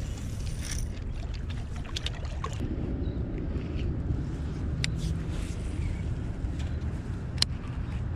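A steady low rumble, with a few sharp clicks scattered through it as a baitcasting reel is cast and reeled in.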